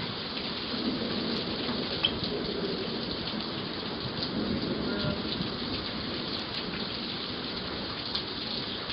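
Hail and heavy rain falling in a steady hiss, with a few scattered sharp ticks of hailstones striking, heard through a Ring video doorbell's microphone.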